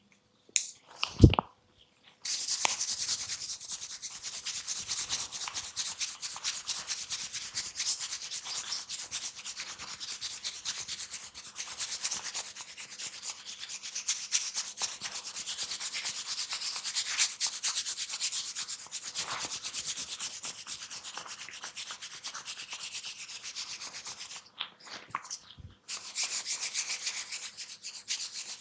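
Close-miked hands scratching and rubbing through hair on the scalp, a dense fine crackle of many tiny ticks. A few short knocks come at the start, and the crackle pauses briefly near the end.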